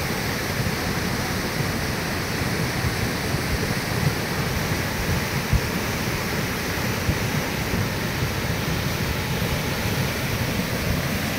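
The Beas River in flood after heavy rain: the steady rush of a fast, muddy torrent. A couple of brief low thumps stand out, about four and five and a half seconds in.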